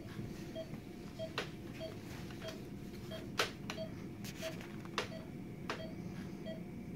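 A soft electronic beep repeating about every 0.6 seconds from hospital bedside equipment, over a low steady hum, with a few sharp clicks of handling.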